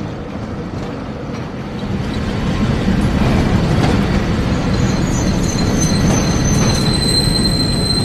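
Tram rumbling as it pulls into the stop, getting louder about two seconds in, with a high steel-wheel squeal on the rails through the second half.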